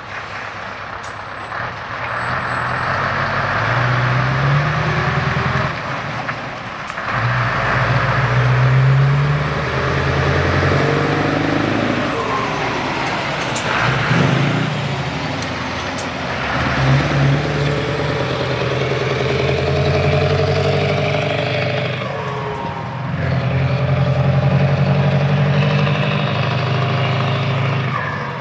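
Scania 164L 580 Torpedo's 16-litre V8 diesel pulling away under load and working up through the gears. The engine note rises, then breaks and drops at each gear change, about four times. It is loudest as the truck passes close by midway.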